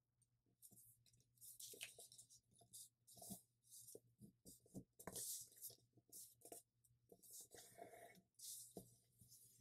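Faint rustling and crinkling of a sheet of printer paper being handled and creased flat by hand, in scattered short crackles and scrapes.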